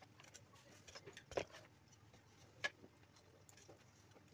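A few faint clicks and knocks of plastic PC case fans and their cable connectors being handled and set down on a desk mat, the loudest knock about a second and a half in and a sharper click near three seconds in.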